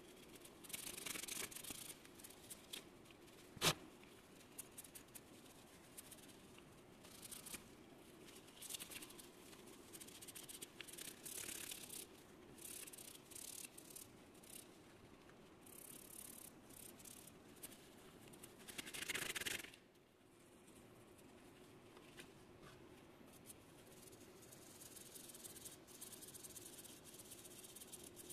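Small aluminum part being scrubbed by hand with a pad: faint, irregular scratchy rubbing in short spells, with one sharp click about four seconds in and a louder stretch of scrubbing just before the twenty-second mark.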